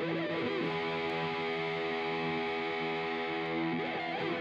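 Background music: a distorted electric guitar holding sustained chords with a couple of short bends, cutting off abruptly near the end and leaving a fading ring.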